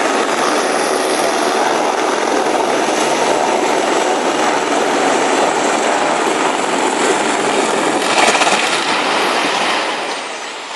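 Helicopter rotors and turbine running close by, with a loud, steady rushing noise of rotor wash that fades a little near the end.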